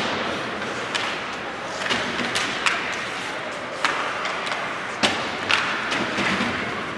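Irregular sharp knocks and thuds, about seven of them, each ringing on briefly in a large echoing hall, over a steady background murmur: the impacts of play during a game.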